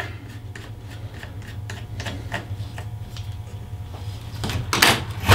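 Light clicks and ticks of a small Phillips screwdriver working the handle screw out of a plastic moulded case circuit breaker, with a few louder clacks of parts being handled near the end.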